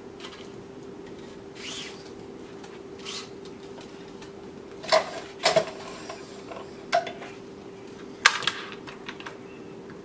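Tennis racquet being strung on a stringing machine: soft swishes of string drawn through the frame, then several sharp metallic clicks from the machine's clamps and tension head in the second half, over a steady hum.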